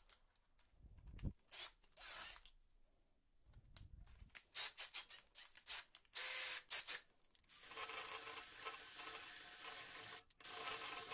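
Clicks and rattles as a screwdriver is fitted and its keyless drill chuck tightened by hand, then a Greenworks cordless drill runs steadily from about seven and a half seconds, stopping briefly near the end and starting again.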